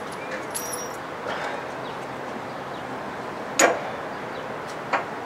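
Hand work on a steel winch bumper's mounting bolts: one sharp metallic clink about three and a half seconds in and a softer one near the end, with a few faint ticks over steady outdoor background noise.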